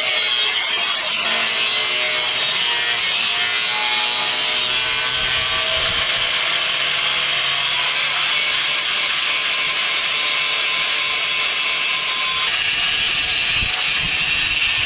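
Angle grinder with a thin cutoff wheel cutting into a steel chassis frame member: a loud, steady, high-pitched grinding hiss, its tone shifting slightly about twelve seconds in.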